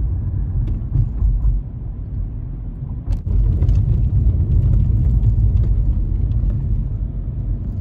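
Car driving at road speed, heard inside the cabin: a steady low rumble of tyres and engine, with a small knock about three seconds in.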